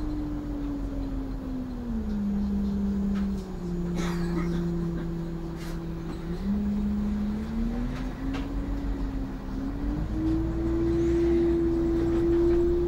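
Renault Agora city bus heard from the driver's cab on the move: a steady whine from its engine and drivetrain over a low rumble, dropping in pitch about two seconds in, then climbing back up from about six seconds on.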